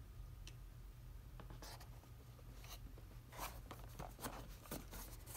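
Cardboard-and-plastic blister packaging of a boxed action figure rubbing and crinkling in the hands as it is turned over: a run of short scratchy sounds from about a second and a half in, over a faint low hum.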